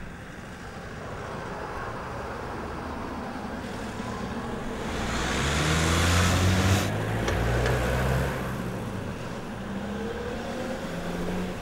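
Town-street traffic: a double-decker bus and cars driving past close by. The engines and tyre noise build to their loudest about six to seven seconds in, with a short sharp click at the peak, then ease off.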